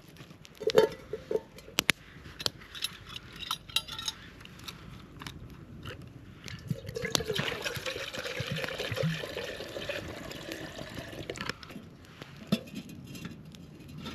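Liquid being poured into a container for several seconds, with sharp clinks and knocks before and after.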